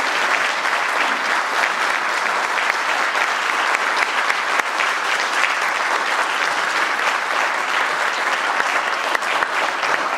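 Lecture-hall audience applauding steadily after the end of a talk.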